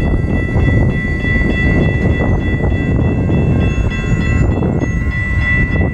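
Railroad crossing warning bell ringing in a steady, even rhythm, about two strokes a second, over a heavy low rumble of wind buffeting the microphone.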